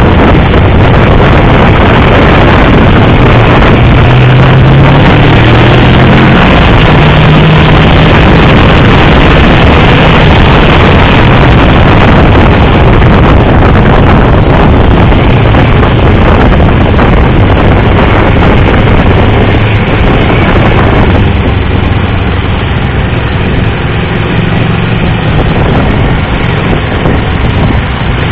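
Motorcycle engine running at track speed under heavy wind rush on the microphone, its pitch shifting with throttle a few seconds in; the rush eases somewhat about three quarters of the way through.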